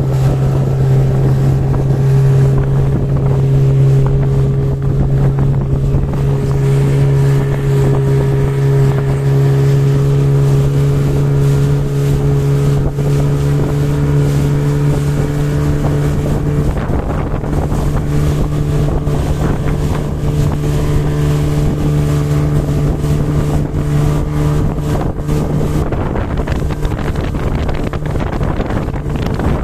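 A motorboat's engine running steadily under way, with a constant drone that shifts slightly in pitch twice. Wind buffets the microphone.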